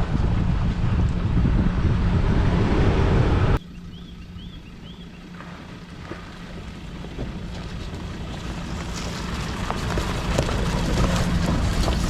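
Ford Ranger 4x4 driving on a dirt forest track, with a steady low engine hum and wind noise on the microphone. About three and a half seconds in the sound cuts off abruptly to a quieter passage with a few short bird chirps, then the vehicle noise builds again with small clicks of gravel.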